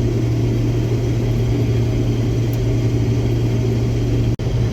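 Case IH Axial-Flow combine running steadily while harvesting soybeans: a constant low drone of engine and threshing machinery. It cuts out for an instant near the end.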